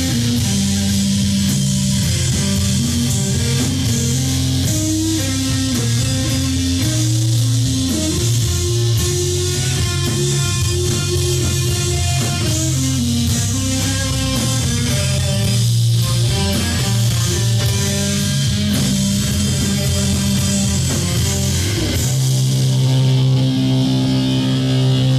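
Live funeral doom band playing: heavily distorted electric guitars on slow, sustained low riffs over drums. About 22 seconds in the drums drop out and a low chord is left ringing.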